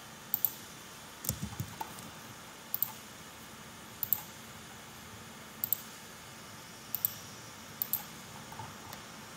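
Computer mouse clicking: six sharp double clicks spaced about a second apart, each pair a tenth of a second apart, with a few soft low knocks just over a second in.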